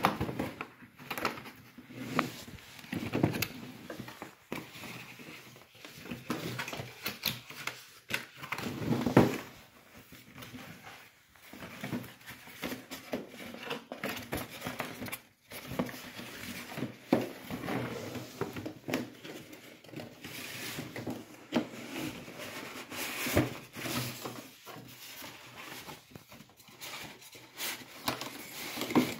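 Cardboard box and white polystyrene foam packing being handled and opened by hand: irregular scrapes, rustles and knocks.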